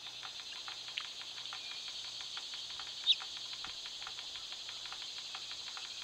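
Small solar fountain jet splashing into a birdbath, a steady light patter of drips. About three seconds in, a bird gives one short, sharp chirp.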